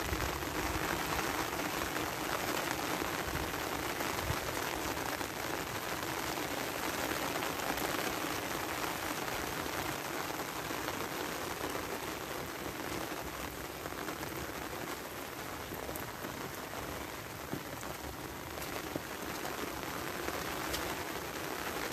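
Steady rain falling on bare, tilled earth and surrounding vegetation: an even, unbroken hiss.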